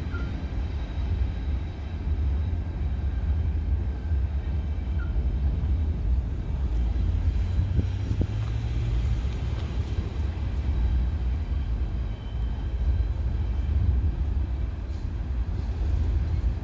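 Low, steady rumble of a VIA Rail passenger train passing at a distance.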